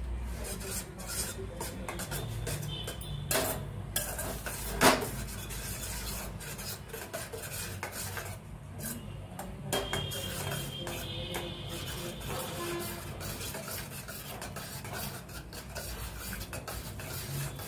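A spoon stirring and scraping round a stainless steel pot of yogurt curry with green chillies, with frequent clinks against the pot and one sharper knock about five seconds in. The stirring is kept up so the yogurt does not split.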